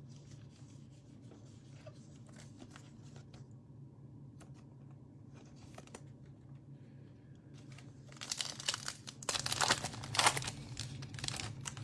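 A foil trading-card pack being torn open, its wrapper ripping and crinkling in a run of loud bursts about eight seconds in. Before that there is only faint handling of cards over a low hum.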